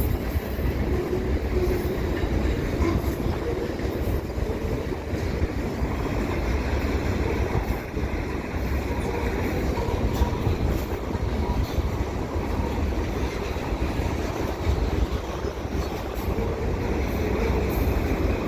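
Freight train of covered hoppers and boxcars rolling past, its steel wheels on the rails making a steady rumble.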